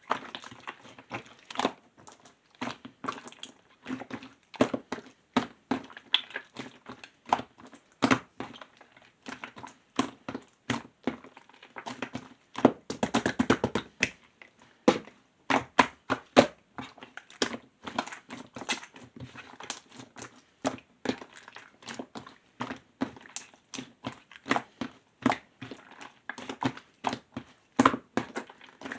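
Hands squeezing and poking clear slime: an irregular run of wet clicks, pops and squelches, busiest about halfway through.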